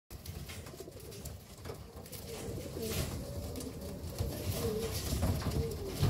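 Racing homer pigeons cooing, several wavering low coos overlapping, with scattered short clicks.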